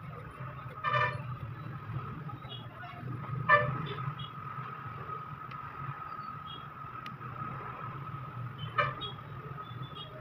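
Three short honks, the loudest about three and a half seconds in, over a steady low hum and a steady high-pitched whine.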